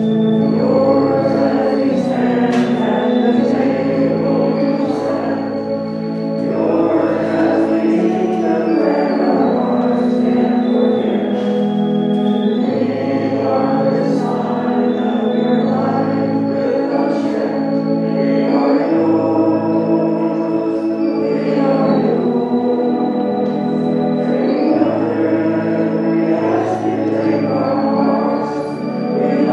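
Church organ playing a slow hymn in sustained chords that change every second or two, with singing over it.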